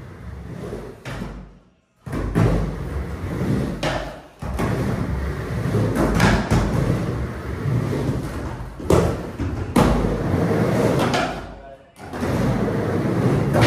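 Skateboard wheels rolling on a plywood mini ramp, a steady rumble broken by several sharp knocks as the board hits the ramp and its coping; the sound drops out briefly twice.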